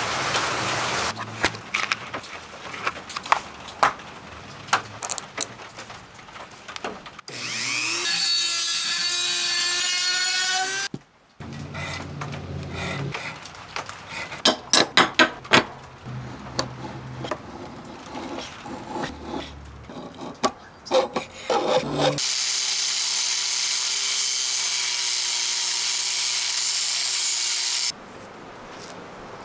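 Hand work on a steel knife handle: irregular file or abrasive strokes scraping the metal, with clusters of sharper clicks. A power tool spins up with a rising whine about seven seconds in and runs for a few seconds, and near the end a power tool runs steadily for about six seconds.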